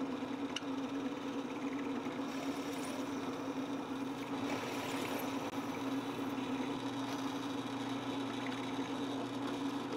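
Drill press motor running at a steady hum while the bit bores string-through holes in the wooden guitar body through a plywood template.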